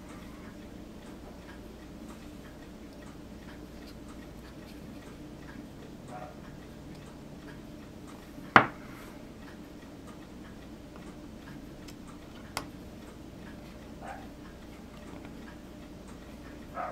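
Faint steady ticking in a quiet workroom, with a sharp click about eight and a half seconds in and a lighter click about four seconds later as tweezers and small plastic model parts are handled on the bench. A dog barks faintly outside near the end.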